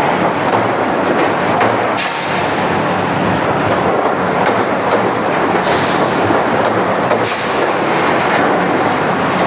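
Automatic punching machine running on steel plate: a loud, continuous clatter of metal knocks over a steady machine hum.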